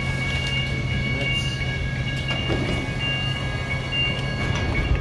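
Hudson-Bergen Light Rail car standing at the platform with its doors open: a steady low hum, with a high, steady whine of several pitches held over it.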